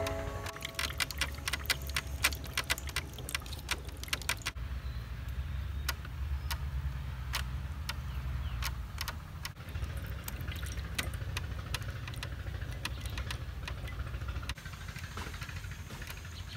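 Hand-turned stone mill grinding rice into batter: a steady low grinding rumble with many sharp clicks and taps from the turning stone and its wooden handle. The clicks are thickest in the first few seconds, and the rumble fades out near the end.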